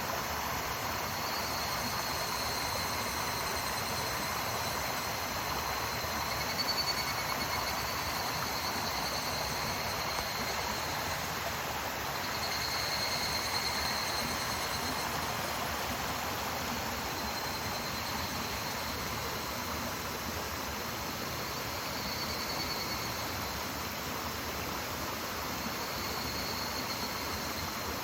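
Clear mountain stream flowing steadily over rocks, with higurashi (evening cicadas) calling in high-pitched phrases that swell and fade about every four to five seconds.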